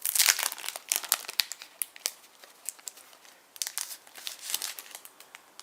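Packaging crinkling and rustling as a pack of craft cards is handled and opened, in two bursts of crackly handling: a long one at the start and a shorter one a little past halfway.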